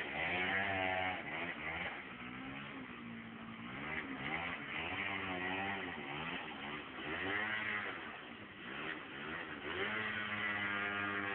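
Small motor scooter engine revving up and down as it is ridden, its pitch rising and falling in about four surges.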